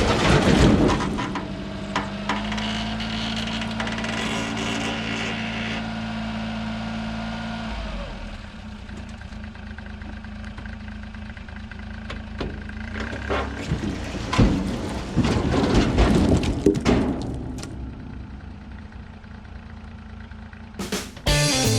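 A small engine running with a steady note for several seconds, then quieter, with a cluster of loud knocks and crashes in the middle.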